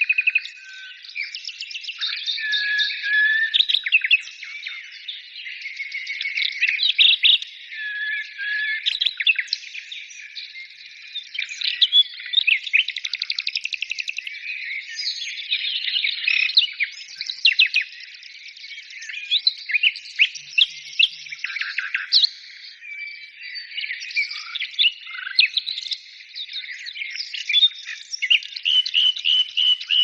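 Songbirds singing: a dense, continuous chorus of quick chirps, trills and short whistles from several birds overlapping.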